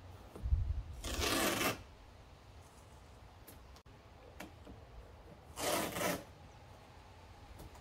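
Masking tape pulled off its roll twice, each pull lasting about half a second, about a second in and again near six seconds. A dull low thump comes just before the first pull.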